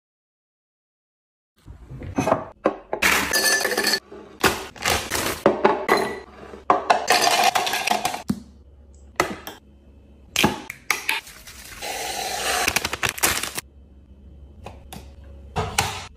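Ice cubes and frozen fruit clinking and knocking into a clear blender cup, starting about two seconds in, with water poured from a glass splashing over them.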